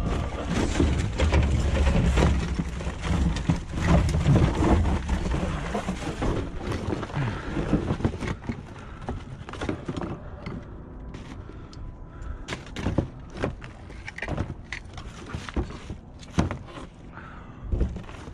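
Knocks, clanks and clatter of scrap metal pieces being handled and sorted, irregular and at varying loudness. A heavy rumble of wind or handling on the microphone covers the first several seconds.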